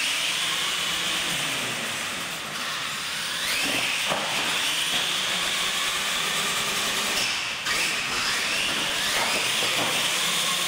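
R/C monster trucks racing: a steady high hiss of electric motors, gears and tyres on a concrete floor, with a rising whine as the trucks accelerate about three and a half seconds in and again near eight seconds.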